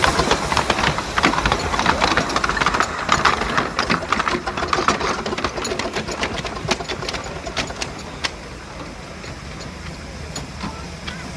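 Tinkerbell miniature steam locomotive working away from a standstill, its exhaust chuffing in a quick, regular beat. The beats fade from about eight seconds in as it runs off down the line.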